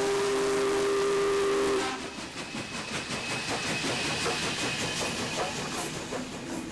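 Union Pacific Big Boy 4014's steam whistle blowing a steady chord, cutting off about two seconds in. The passing train's rough, crackling noise follows, heard through crunchy, distorted audio.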